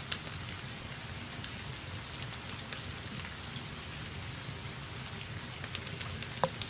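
Steady low hiss with a few scattered light ticks and clicks.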